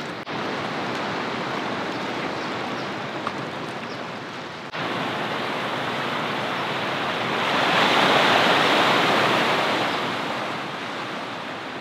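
Ocean surf washing into a narrow rocky inlet, a steady wash of water; about two-thirds of the way through a wave surges in, growing louder and then ebbing away.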